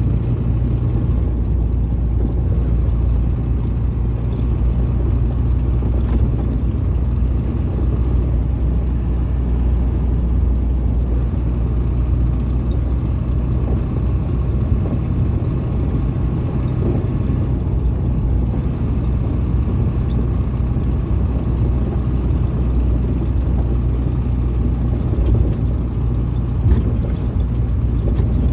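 Ford Cargo 712 diesel light truck on the move at steady highway speed: a continuous low engine drone with road noise, heard from the cab. A brief knock comes near the end.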